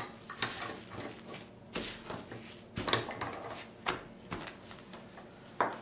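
Plastic cling wrap crinkling and rustling in irregular crackles as it is folded around a sheet of fresh pasta dough, with the sharpest crackles about three seconds in and near the end.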